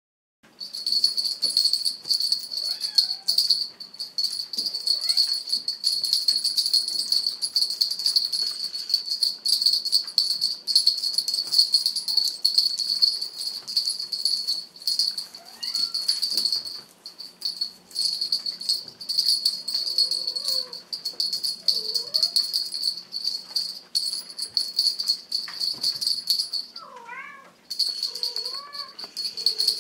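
Small jingle bell on a feather wand cat toy, ringing steadily as the wand is shaken and stopping briefly twice. Near the end a kitten gives several short mews that rise and fall in pitch.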